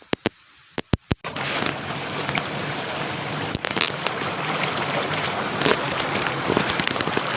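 A few sharp clicks, then from about a second in the steady rushing of a small waterfall.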